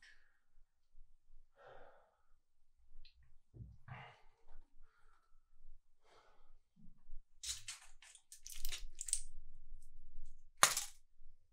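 A man breathing heavily and sighing, then a plastic-and-foil blister pack of pills crinkling and crackling as it is handled, with one sharp, loud crackle near the end as a pill is pushed out.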